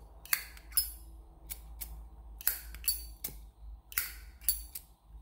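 Sharp metallic clicks and clinks from a vintage Zippo lighter being handled, about nine at irregular intervals.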